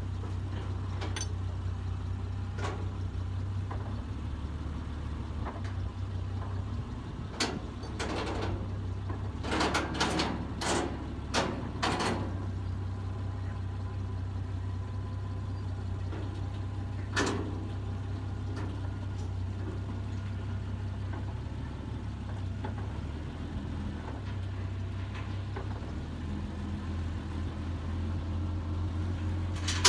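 Forklift engine running steadily, its note shifting a few times as it lowers a trailer frame, with a cluster of sharp metal clanks about a third of the way through and another single clank past halfway.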